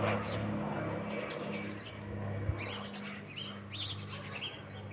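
Twin piston engines and propellers of a Cessna 402 droning steadily as the plane climbs away, with a low pulsing hum that slowly fades. From about halfway in, birds chirp over the drone, and there is a single brief knock near the middle.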